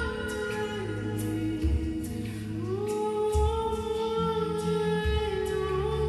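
Meditative background music with wordless, choir-like held singing that slowly shifts pitch, over a low note that pulses about every second and three-quarters.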